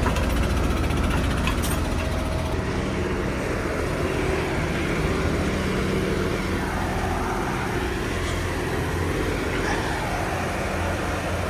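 Large tractor diesel engines idling steadily, a Case IH Quadtrac tracked tractor close by, with one brief click about two seconds in.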